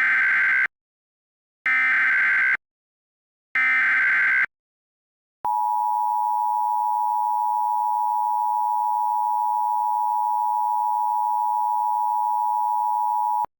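Emergency Alert System SAME header: three short bursts of warbling digital data, each under a second, followed by a steady, loud alert attention tone that holds for about eight seconds and cuts off sharply, announcing a civil danger warning.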